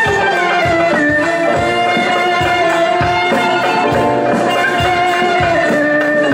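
Small live ensemble playing an instrumental passage: a sustained, wavering melody line over a steady drum beat of a little more than one stroke a second.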